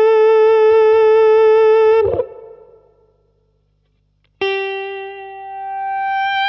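Electric guitar through a Digitech FreqOut feedback-generator pedal: a long sustained note is held with a slight waver and cut off about two seconds in. After a short silence a new note is picked and swells back up as the generated feedback blooms.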